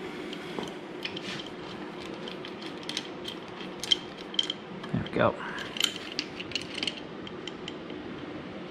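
Irregular metallic clicks and clinks of steel bolts, washers and the bracket of a transmission mount being fitted by hand to a Tremec T56 gearbox's tailhousing, with one brief louder rasp about five seconds in.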